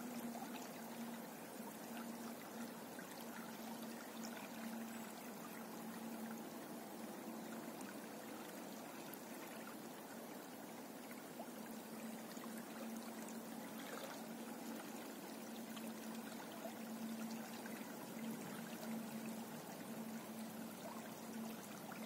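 Small river running over a shallow riffle and around a snag and stones, the water babbling and splashing steadily. A low hum sits underneath.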